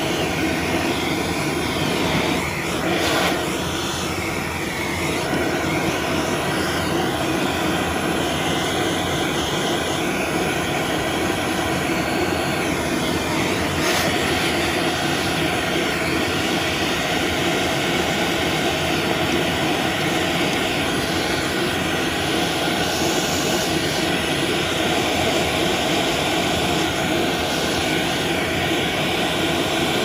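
Vacuum cleaner motor running steadily with a loud whine, sucking dust out of a PC case fan.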